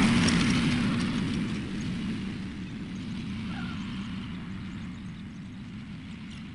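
Compact tractor engine running as the tractor drives away, fading steadily over a few seconds.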